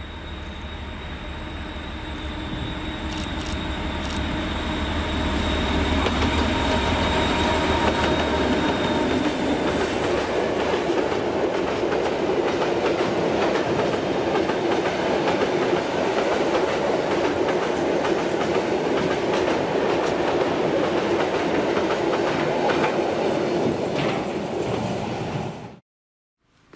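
TEM2 diesel shunting locomotive running as it draws closer and passes, with a thin high whine over the first several seconds. A long train of dump-car wagons then rolls by with a steady clatter of wheels on the rails. The sound cuts off abruptly near the end.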